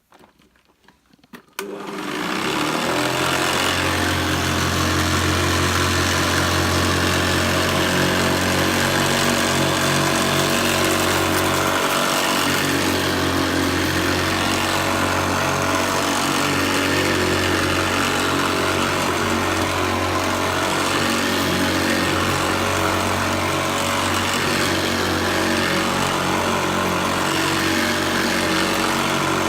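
Hoover Senior Ranger U4002 upright vacuum cleaner switched on about two seconds in, its motor running up to speed and then running steadily while vacuuming up debris.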